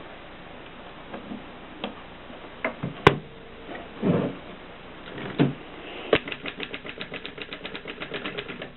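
Mercedes typewriter mechanism: scattered sharp clicks and a few duller knocks, then, about two-thirds of the way through, a fast, even run of clicks, roughly ten a second, for about two and a half seconds.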